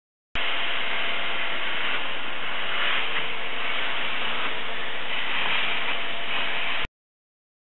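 Steady hissing noise with a faint hum under it, starting and stopping abruptly.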